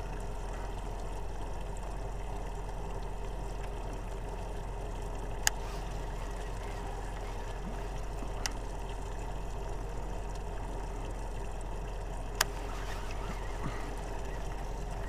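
A boat's steady low motor hum, with three short sharp clicks about five, eight and twelve seconds in.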